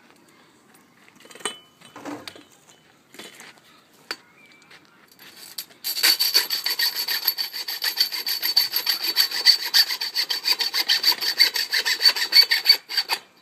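A few knocks and clanks, then from about six seconds in a saw cutting steadily through the bicycle's metal frame tube in rapid strokes.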